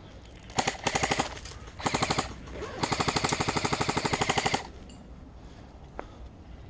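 Airsoft electric gun firing full-auto: two short bursts, then a longer burst of nearly two seconds of rapid, evenly spaced shots.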